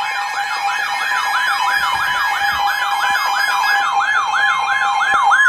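Emergency Alert System warning tone: steady paired beeping tones overlaid with a siren-like warble that rises and falls about three times a second, quickening slightly toward the end, signalling a severe thunderstorm warning.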